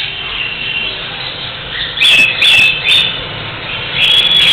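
Cockatiel calling: softer chirping, then three loud, sharp chirps about two seconds in, and louder continuous calling near the end.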